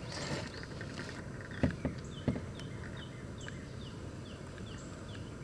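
Two sharp knocks inside the canoe as the turtle is handled, the loudest sounds, then a bird repeating short falling notes about twice a second over a steady outdoor background.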